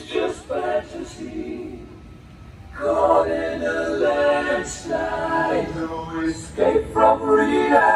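Layered choir-like vocal harmonies from the fireworks show's music soundtrack, several voices singing together, growing louder about three seconds in.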